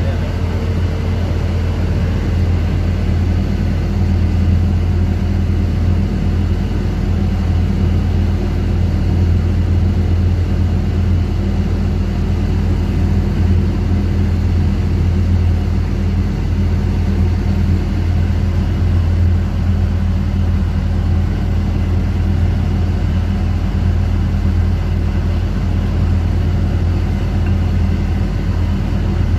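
Steady, loud low drone of a fishing boat's running machinery, unchanging throughout.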